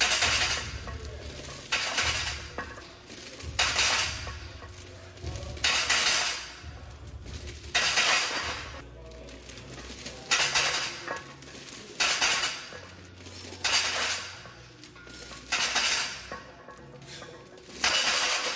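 Background music with a stepping bass line, over the steel chains on a bench-press barbell clanking and the bar knocking onto the rack pins. These metal clanks come about ten times, roughly every two seconds, once per rep of a set of dead presses.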